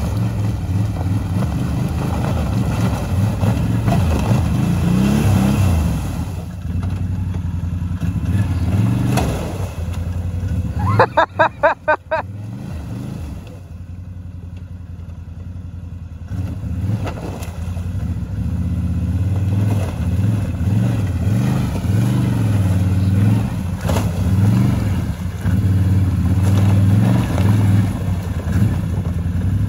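ATV engine revving hard and easing off as the quad spins its wheels through a flooded, ice-covered puddle, throwing up water and breaking the ice. About eleven seconds in comes a short, loud stuttering burst, then the engine drops to a low idle for a few seconds before revving up again.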